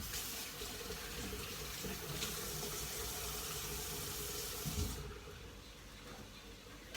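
Kitchen tap running into a sink for about five seconds, then turned off, with a soft knock just before it stops.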